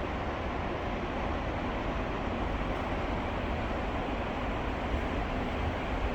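Container freight train hauled by an EF210 electric locomotive rolling into the station, a steady low rumble.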